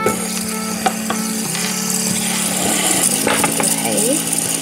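A stack of fidget spinners spinning on one another, their ball bearings whirring in a steady low hum, with a few light clicks as fingers flick them and set another on top. The hum drops slightly in pitch about a second and a half in.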